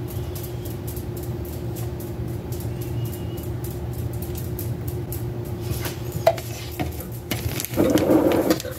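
Steady low mechanical hum. In the last few seconds a metal spoon scrapes and clicks against a plastic sour cream tub, then a louder brushing rustle comes near the end.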